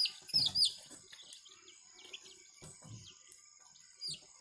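Young chicks peeping: a quick run of loud, high peeps that slide downward in pitch in the first second, then fainter, sparser peeps.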